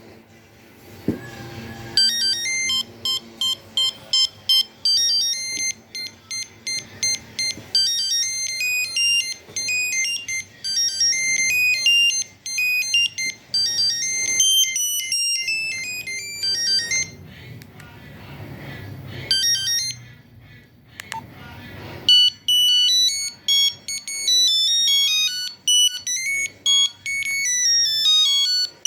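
Nokia 2100 mobile phone playing ringtone melodies of quick electronic beeps through its speaker. One tune starts about two seconds in and stops a little past halfway. After a few seconds' pause a second, faster tune begins.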